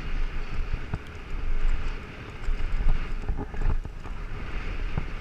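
Wind rushing over the microphone and tyre rumble of a downhill mountain bike rolling down a dirt trail, with scattered knocks and rattles from the bike as it goes over bumps.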